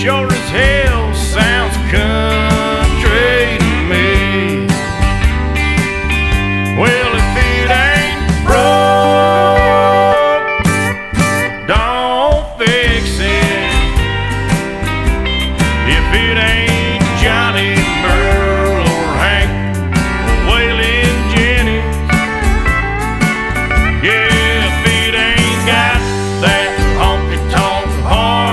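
Country song with sung vocals, guitars and steel guitar over a steady beat.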